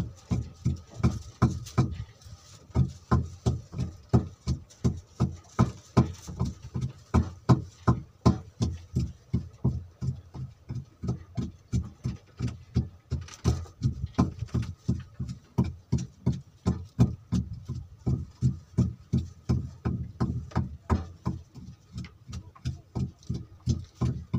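Boat engine running with a slow, even beat of about two and a half low thumps a second.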